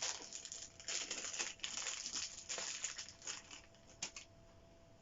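Rustling, crinkling and clicking of hands handling a cordless electric screwdriver and its plastic bit holders, busiest over the first couple of seconds and then sparser. A faint steady tone sounds underneath.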